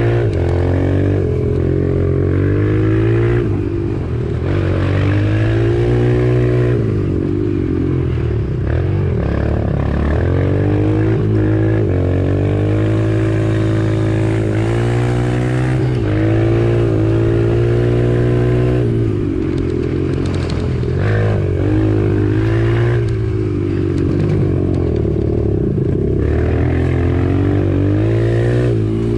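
Small off-road motorbike engine being ridden hard, its pitch climbing and dropping again and again as the throttle is opened and closed.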